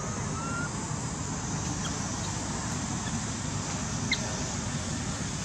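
Steady outdoor background noise with a low rumble, a faint short rising chirp near the start and a brief click about four seconds in.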